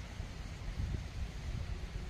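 Wind buffeting the microphone: a low, gusty rumble over a steady outdoor hiss.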